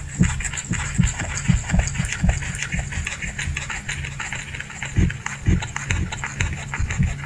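Rabbit chewing raw cauliflower: a rapid run of small crisp crunches with soft, quick knocks of the jaw, over a steady low hum.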